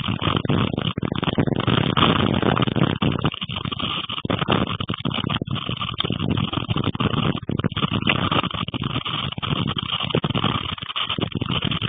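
Storm wind and heavy rain: a loud, rough rush of noise that surges and dips in gusts.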